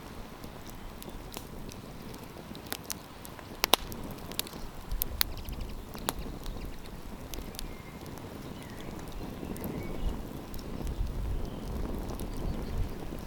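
Campfire of burning wood crackling, with irregular sharp pops over a steady low hiss. A low rumble comes and goes.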